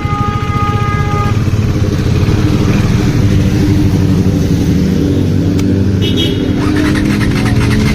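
Motorcycle engines running as the riders set off, growing louder over the first two seconds and then holding steady. A steady high tone sounds over roughly the first second.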